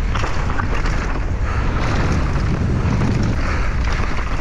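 Wind rushing and buffeting over a helmet- or chest-mounted action camera's microphone during a fast mountain-bike descent. The bike rattles and knocks over rough ground throughout.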